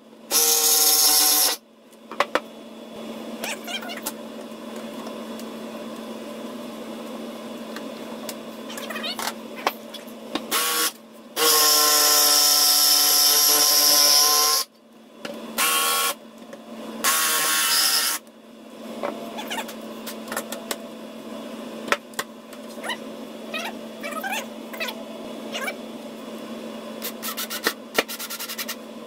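Jigsaw cutting in short runs: the motor starts and stops abruptly about five times, its longest run about three and a half seconds near the middle. Between runs, quieter clicks and scrapes over a low steady hum.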